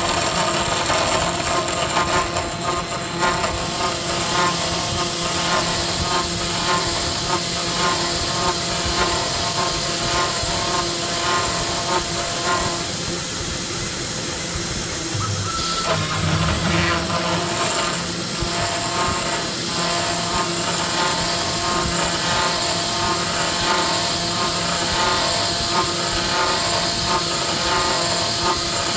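CNC router spindle turning a thread mill that cuts M6×1 threads into an aluminium plate: a steady whine of several tones over a constant hiss. About halfway through, the cutting sound briefly changes, then settles again.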